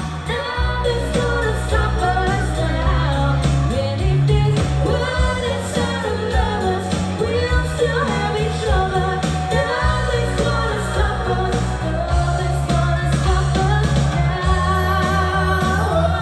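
Pop song with a sung vocal melody over a steady bass line.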